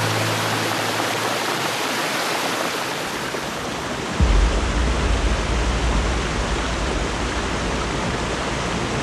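Rushing stream water, a steady hiss. About four seconds in, a heavy low rumble suddenly joins it and carries on.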